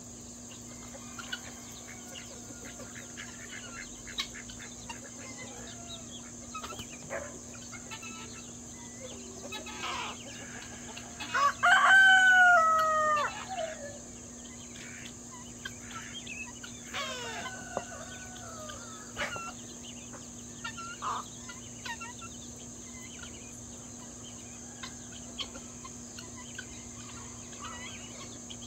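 A rooster crows loudly once, about halfway through, with a fainter, falling crow a few seconds later. Short clucks and chirps from a feeding flock of chickens and other poultry run throughout, over a steady high insect drone.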